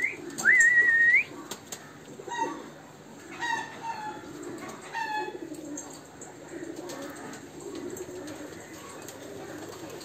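Domestic pigeons cooing steadily in their lofts. Near the start come two short whistles that rise to a held note and then tip up at the end, the loudest sounds here, and a few other bird calls follow over the next few seconds.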